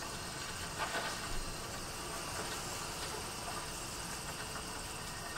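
Quiet outdoor ambience from a film soundtrack: a steady hiss of background with faint insect chirring, and a few soft crackles about a second in.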